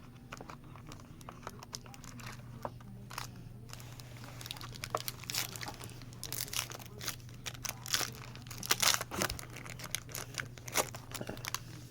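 Trading card packaging, plastic wrap and foil packs, being torn open and crinkled by hand in irregular bursts of crackling.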